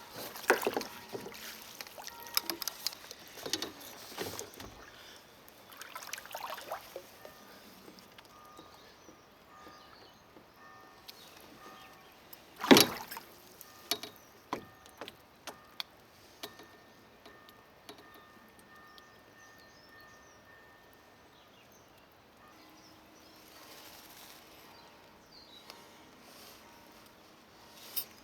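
Small splashes and scattered knocks and clatter on a fishing kayak, with one sharp knock about halfway through, louder than the rest.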